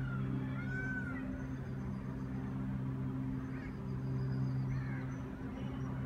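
An animal calling: two short rising-and-falling cries near the start and two shorter ones about halfway, over a steady low hum.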